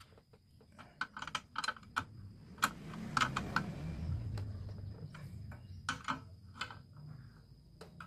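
Ratchet socket wrench clicking in short, irregular runs as exhaust mounting bolts are tightened.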